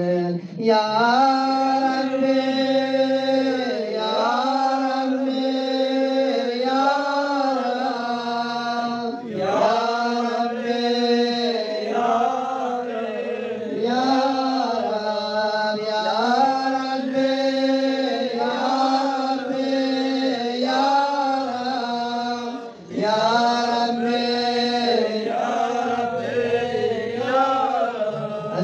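A man's voice chanting a devotional Shia supplication in long melodic phrases, amplified through a handheld microphone, with two brief breaths between phrases.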